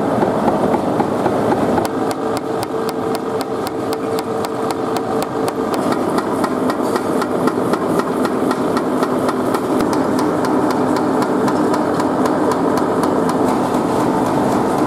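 Wood briquetting press running: a steady machine hum with a rapid, even knocking of about four or five strokes a second.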